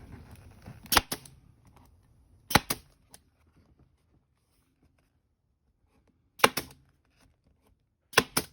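Pneumatic staple gun firing four times, each a sharp double snap, about a second in, then at roughly 2.5, 6.5 and 8 seconds. It is driving staples through upholstery material into a plastic armrest lid, with its air pressure turned down from 150 psi.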